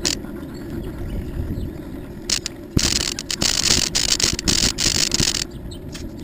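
A bicycle rolling along a paved trail with a steady low rumble. About two and a half seconds in, the tyres run onto a wooden plank bridge: a loud, rattling clatter with quick knocks over the deck boards for about three seconds, then it drops back to the quieter rolling rumble.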